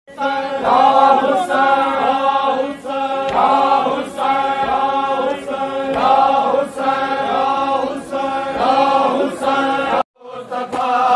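Group of men chanting a noha, a Shia lament, in unison, with rhythmic chest-beating slaps about once a second. The sound cuts out for a moment near the end.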